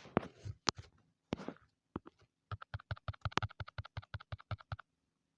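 A few scattered light clicks, then a quick, even run of small clicks or taps, about ten a second, lasting a little over two seconds.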